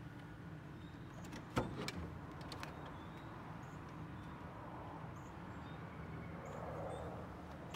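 Steady low hum outdoors, with one sharp click about one and a half seconds in, a couple of softer clicks just after, and faint high bird chirps.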